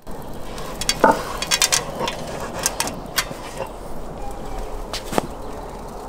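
A brick tandoor being covered by hand: several sharp knocks and clicks of bricks and the metal skewer being handled, over a steady hiss.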